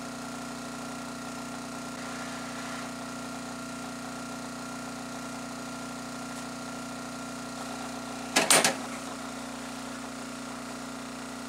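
Hot-air rework station blower running with a steady hum while it blows hot air to melt the solder on a small EEPROM chip. About eight and a half seconds in comes a brief, loud clatter as the hot-air handpiece is set back in its metal holder.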